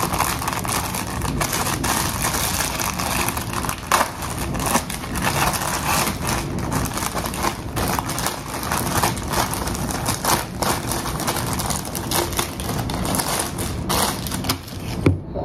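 Clear plastic packaging crinkling and crackling steadily as it is handled, torn open and a stethoscope pulled out of it.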